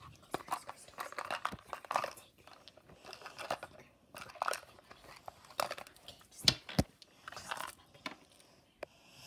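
Rustling and crunchy handling noises from a small box being carried and handled, with two sharp knocks in quick succession about two-thirds of the way through.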